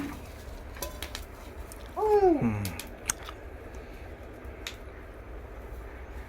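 Scattered light clicks and rustles of packaging being handled, with a short falling vocal exclamation about two seconds in.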